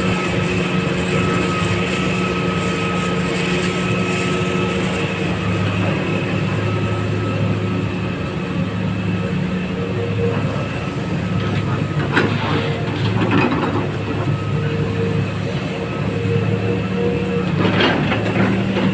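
Excavator diesel engine running steadily under load, with a steady whine over it and two short bursts of rattling, about twelve seconds in and near the end.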